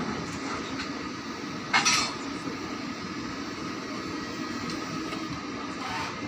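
A single sharp metallic clank of a railway automatic coupler striking its mate, ringing briefly, about two seconds in, with a fainter knock near the end. It sounds over the steady hum of the standing EP20 electric locomotive. The coupler locks, on stiff springs, fail to engage because the locomotive comes on too gently.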